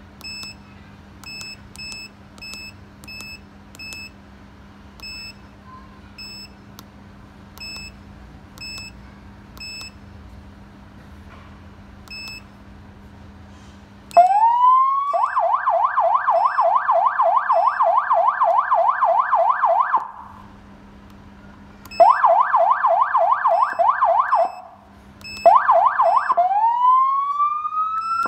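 Electronic siren from a Black Falcon 100 W siren amplifier. The first half is quiet, with short high beeps about every half second. About halfway through, a rising wail breaks into a fast up-and-down yelp, which stops and starts again twice, each time beginning with the rising wail.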